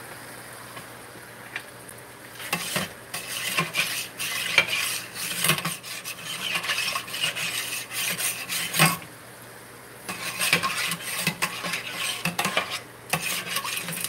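Metal tongs stirring and scraping in a stainless steel pot of broth, with repeated clinks against the pot. The stirring starts a couple of seconds in and comes in stretches with two short pauses.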